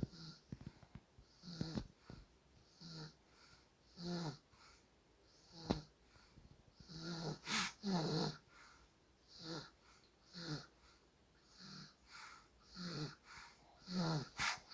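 Soft, wheezy snoring in sleep: short snored breaths about once a second, each with a brief low pitched buzz and a breathy hiss, a few slightly louder in the middle.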